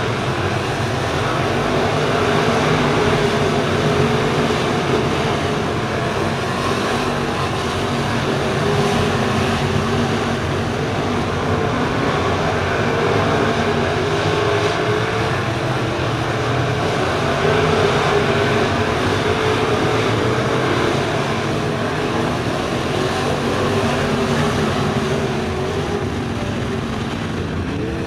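A field of FASTRAK crate late model dirt race cars running laps together, their crate V8 engines making a dense, continuous sound of many engines at once, swelling a little and easing as the pack moves around the oval.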